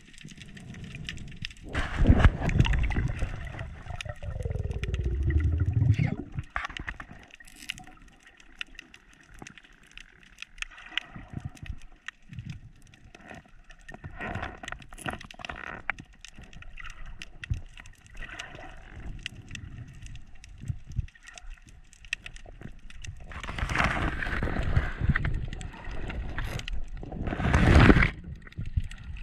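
Underwater sound of a freediving spearfisher's dive: water rushing over the camera housing, with bubbles and scattered sharp clicks throughout. A few seconds in there is a louder rush with a sound falling in pitch, and near the end come two loud rushes of water as the diver heads back up through the kelp to the surface.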